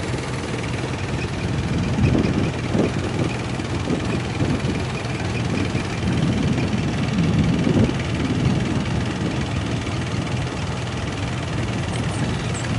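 Tourist motorboat's engine running steadily while the boat is under way, under a constant rushing noise.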